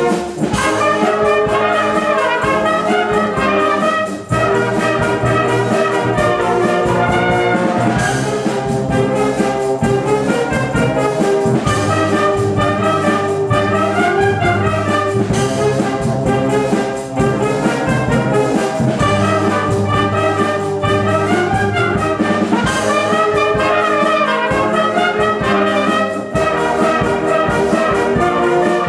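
Concert wind band playing live: clarinets, saxophones and flutes with trumpets, trombones and tuba over double basses, in a full, steady ensemble sound. A few crashes ring out through the music.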